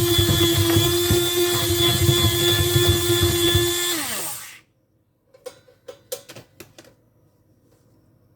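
Small electric kitchen appliance motor running at a steady high speed, then switched off about four seconds in, its pitch falling as it winds down. A few light clicks and taps follow.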